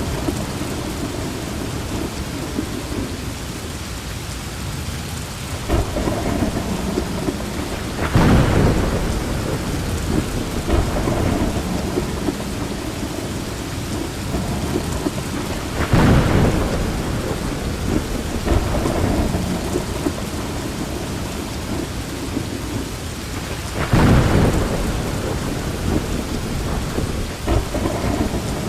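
Heavy rain pouring steadily, with three sudden claps of thunder about eight seconds apart, each fading over a second or two.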